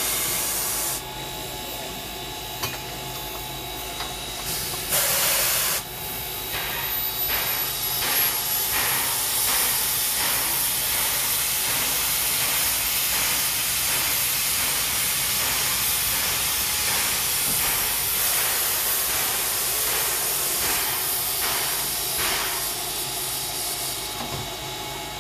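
Steam locomotive standing with steam hissing out of it: a short louder blast of hiss at the start and another about five seconds in, then a steady loud hiss that carries on almost to the end.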